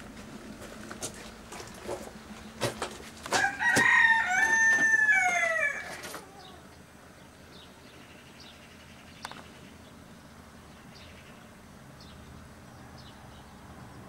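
A rooster crowing once, a cock-a-doodle-doo of about two and a half seconds that ends on a falling note, a few seconds in. A few sharp knocks come just before it.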